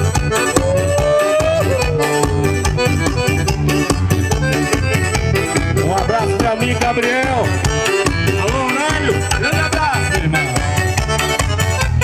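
Live forró music led by an accordion playing an instrumental solo over a steady percussion beat.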